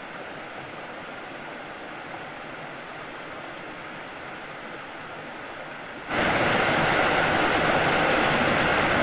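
Steady rushing water of a fast-flowing river. About six seconds in it abruptly becomes much louder and brighter.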